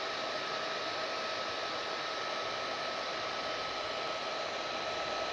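Hair dryer running steadily: an even rush of blown air with a steady whine from its motor.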